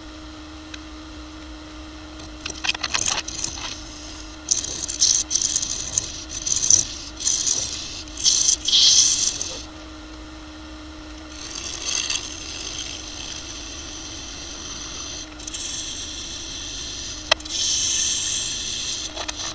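Wood lathe spinning a maple burl bowl blank with a steady hum, while a hand-held turning tool cuts the wood in several spells of rasping shaving noise with short pauses between. There is a single sharp tick about seventeen seconds in.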